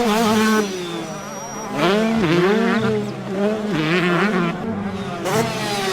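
Dirt-bike engine sound revving, its pitch rising and falling over and over.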